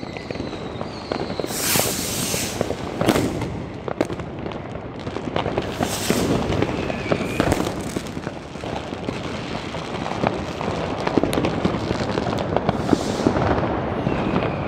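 Fireworks and firecrackers going off all around: a continuous rattle of crackling and sharp bangs, with louder hissing bursts about two, six and thirteen seconds in.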